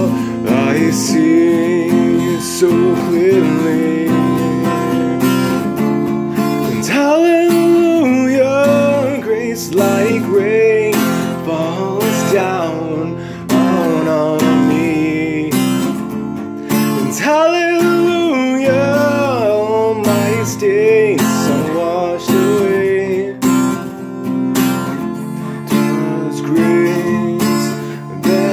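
Acoustic guitar strummed steadily, with a man singing over it in phrases.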